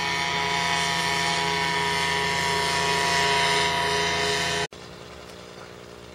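Paramotor engine and propeller running at a steady drone that drops abruptly to a much fainter, steady hum about three-quarters of the way through.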